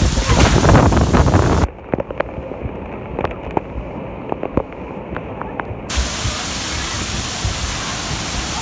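Splash-pad water jets spraying close to the microphone: a loud rushing splatter for the first second and a half, then scattered droplets spattering, and a steady rushing hiss of spray from about six seconds in.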